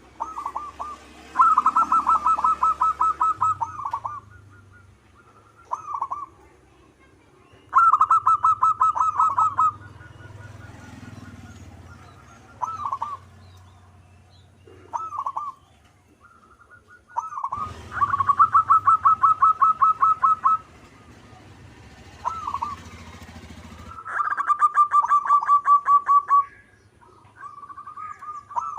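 Zebra dove (perkutut) singing: four bouts of its fast, evenly pulsed cooing, each two to three seconds long, with short single coo notes between them.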